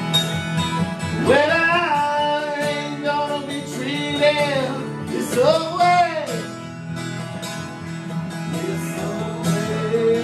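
A man singing a country-folk song to his own strummed acoustic guitar, with three sung phrases, a short stretch of guitar alone, and the voice coming back near the end.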